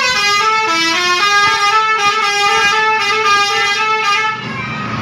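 Basuri telolet air horn on a bus playing a melody, several horn tones sounding together and stepping quickly from note to note. It cuts off about four seconds in.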